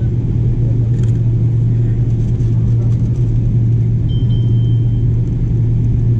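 Cabin sound of a Boeing 777-300ER taxiing, heard by the wing: its GE90 engines at taxi power and the rolling aircraft give a steady low rumble. A faint brief high tone sounds about four seconds in.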